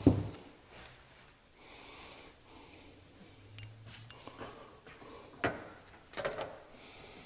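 Hand tools and small metal carburetor parts handled on a towel-covered workbench: a sharp knock right at the start, another about five and a half seconds in, and a short run of clicks just after it.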